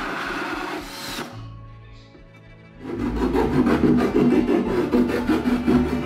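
Cordless drill with a hole saw running in a wooden panel for about the first second, then stopping. From about three seconds in, quick, evenly repeated rasping strokes as the edge of the cut hole is rubbed down by hand, over background music.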